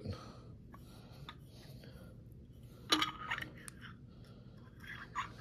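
Faint handling of a small glass bottle with a disc magnet held to it. About three seconds in there is one sharp clink with a short ring, as of the magnet knocking against the glass, with a few softer ticks around it.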